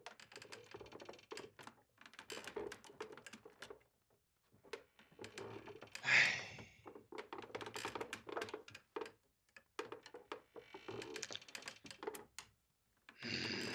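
Rapid, irregular clicking and tapping, like typing, with short pauses and a brief louder sound about six seconds in.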